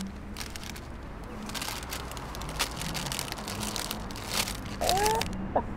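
Crisp packet crinkling and tearing as it is pulled open, a rapid run of sharp crackles. Near the end, a chicken clucks a few times.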